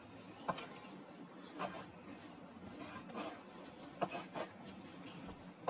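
Pencil scratching on paper in a series of short strokes while drawing.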